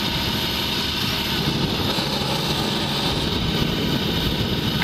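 Heavy utility truck's diesel engine running steadily, an even rumble and hiss with no distinct knocks or changes.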